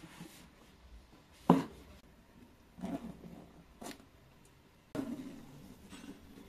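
Padded carry bag being lifted out of its cardboard box and set down on a table: one sharp knock about a second and a half in, then softer thumps and a click as gloved hands handle the bag.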